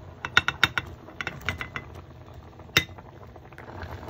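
A quick run of sharp clicks and knocks, with one more near three seconds, as Vienna sausages are tipped from a plate into a pot of sauce. Near the end the sauce starts a soft bubbling simmer.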